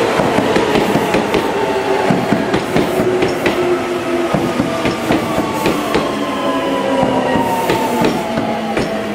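Seibu 6000-series electric train rolling past close by as it slows to a stop. Its wheels clack irregularly over the rail joints, and a whine slowly falls in pitch as it brakes.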